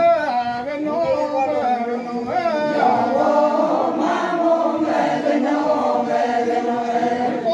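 Group of men and women chanting an Adi folk dance song together, many voices overlapping in a steady, continuous chant.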